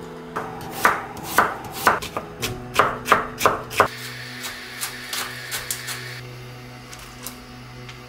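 Kitchen knife chopping vegetables on a wooden cutting board: a run of about nine sharp strokes over three seconds, then a few lighter cuts. Soft background music plays underneath.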